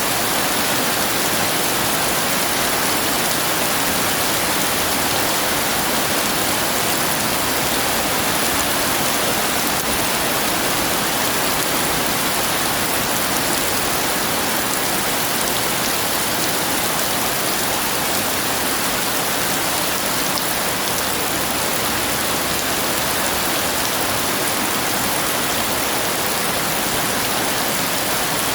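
Heavy rain falling steadily, an even hiss with no thunder claps.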